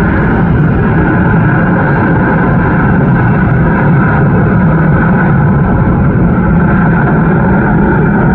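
Airbus A340 jet airliner's four engines at takeoff power: a loud, steady rumble that holds at the same level throughout.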